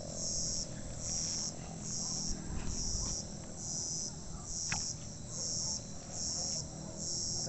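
An insect chirping in short, high, evenly spaced pulses, a little more than one a second, over soft rustling and handling noise, with a single sharp click about five seconds in.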